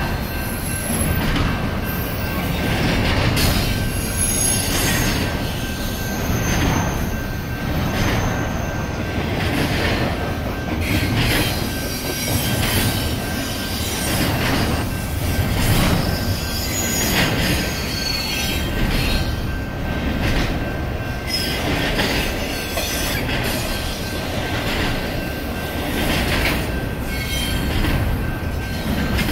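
Double-stack intermodal freight cars rolling past at speed: a continuous rumble of steel wheels on rail, with regular clacks about once a second and a thin steady high tone over it.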